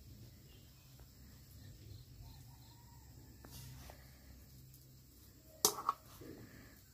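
Faint low hum with scattered faint small sounds, then a sharp double knock about five and a half seconds in as a small dog noses at a steel food bowl.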